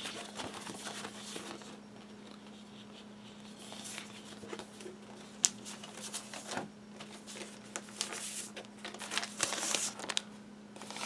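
Cardboard record jackets and a paper inner sleeve being handled: rustling and sliding with light taps, a sharp tap about halfway through and a burst of rustling near the end as a vinyl record in its paper sleeve is pulled out.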